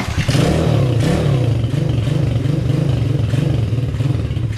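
A 125cc four-stroke pit bike engine firing on a kick-start, catching at once and running, its note rising and falling over and over as it warms up.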